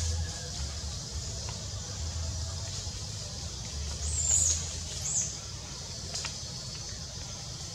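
Forest background: a steady high hiss and a low rumble that comes and goes, with two short high chirps about four and five seconds in.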